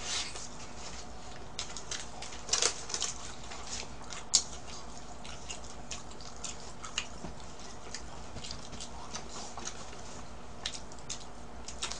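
Light crinkling and clicking of paper fast-food wrappers and a small packet being handled during eating, with a few sharper clicks about two and a half and four and a half seconds in.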